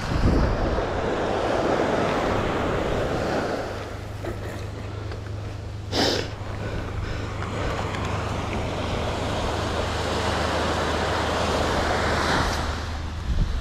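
Surf washing up a sand beach in long swells, with wind rumbling on the microphone. There is a short sharp noise about six seconds in.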